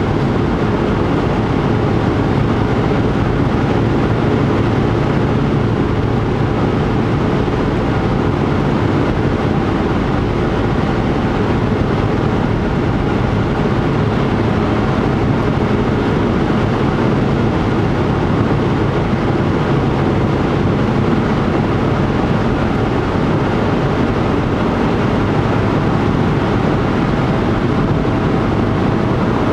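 Steady low road and engine noise of a moving car, heard from inside the cabin.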